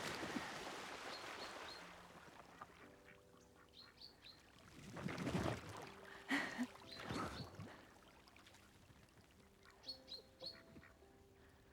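Ducks quacking now and then, with short high chirps and a few louder swishing noises.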